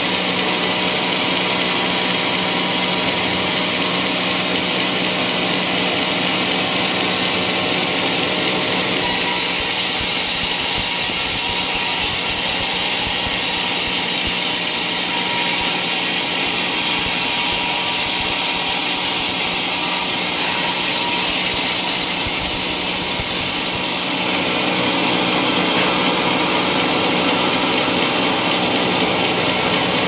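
Band sawmill blade cutting lengthwise through a large teak log, running steadily with a constant low hum from the mill's drive under the hiss of the cut.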